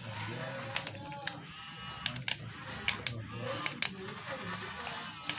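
Small electric motors of a mini radio-controlled toy excavator buzzing, with irregular sharp clicks.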